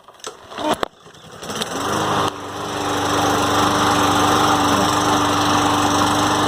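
Push mower's small engine, which had refused to start, catches about two seconds in after a few handling noises and then runs steadily. It starts after light taps on its plastic carburetor, a trick the owner finds often works though it does not cure the underlying fault inside the carburetor.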